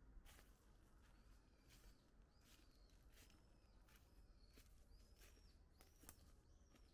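Faint footsteps crunching through dry fallen leaves, with a bird repeating a short, high call a little more than once a second.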